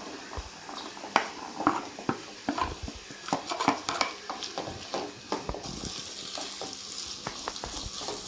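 Chopped onion and capsicum tipped into hot oil in a kadai and stirred with a wooden spatula: a clatter of pieces and spatula knocks on the pan, then the oil sizzling steadily from about six seconds in.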